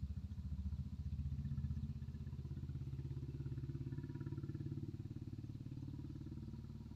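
A small engine running steadily, low-pitched with a rapid even pulse.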